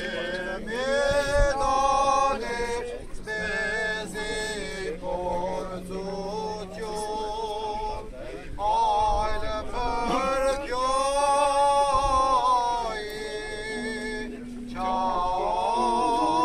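Male voice chanting an Armenian church hymn in long held phrases that bend in pitch, with a low steady note held beneath at times.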